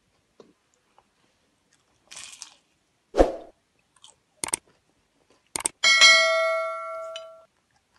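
Subscribe-button animation sound effect: two sharp mouse clicks, then a notification bell that rings for about a second and a half. Before it comes a loud thump a little after three seconds in.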